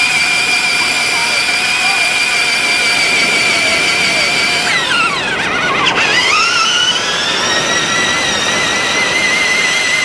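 Electric drive motor and gearbox of a toy RC monster truck whining steadily. About five seconds in, the pitch drops sharply and climbs back within a couple of seconds as the truck slows and speeds up again.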